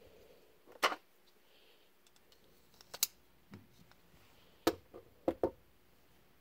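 Sharp plastic-and-metal clicks and knocks as a stiletto fixed knife is handled and slid into its grey polymer sheath, then the sheathed knife is set down on a wooden table. There is one loud click about a second in, another near three seconds, and a quick cluster of three near the five-second mark.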